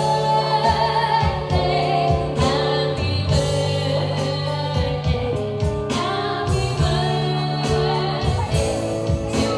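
A singer with musical backing: held chords over a steady bass line, with the sung melody gliding over them.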